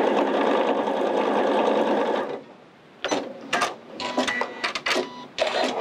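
Elna eXpressive 920 sewing machine stitching steadily through cotton fleece and lace, stopping a little over two seconds in. A scatter of short clicks and knocks and a brief whir follow.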